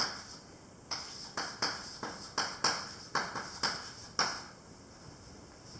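Chalk writing on a blackboard: about ten sharp taps and short scrapes as letters are struck onto the board, stopping a little past four seconds in.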